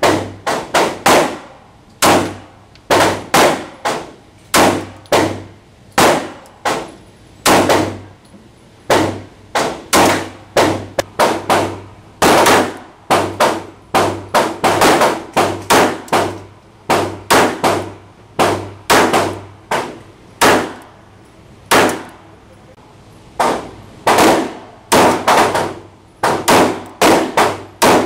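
Repeated gunshots from Ruger compact pistols (a 9 mm LC9 and a .380 LCP), fired in quick strings of a few shots with short pauses between. Each shot is a sharp crack that rings briefly off the walls of an indoor range.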